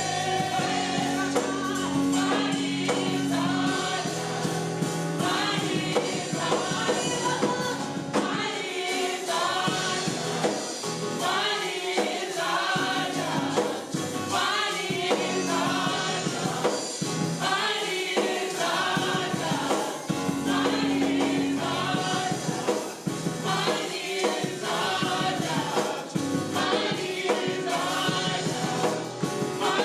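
Gospel choir singing a praise song with band accompaniment and sustained bass notes, in steady phrases.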